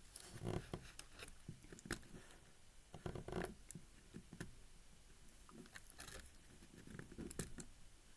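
Faint, irregular scraping, crinkling and small clicks of adhesive tape being picked and peeled off plastic 5x5 cube pieces, with a longer scrape about three seconds in.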